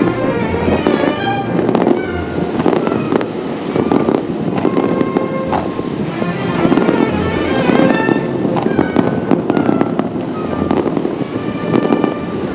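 Aerial fireworks shells bursting and crackling in rapid succession, a dense run of bangs over a continuous rumble, with music playing along.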